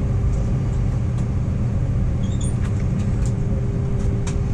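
Cabin noise inside an Airbus A320 taxiing: a steady low rumble of the jet engines and airframe, with a steady hum over it.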